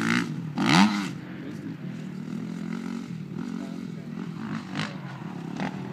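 Motocross dirt bike engine running on the track, its pitch rising and falling as the rider works the throttle through the turns, with a sharp rev about a second in.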